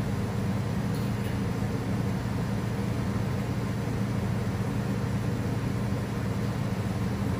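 Steady low hum of workshop machinery running, even in loudness throughout, with a faint light tick about a second in.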